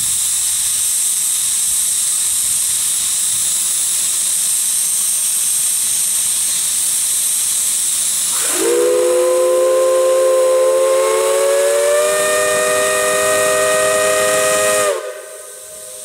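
Steam hissing steadily from a manifold of antique steam locomotive whistles. About eight and a half seconds in, a chime steam whistle sounds a chord of about three notes that creeps slightly up in pitch, holds about six seconds and cuts off sharply.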